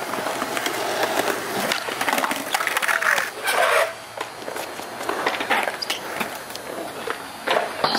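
Skateboard wheels rolling on smooth concrete, a steady hiss studded with clicks and clacks from the board, with a louder scrape about three and a half seconds in and sparser knocks after that.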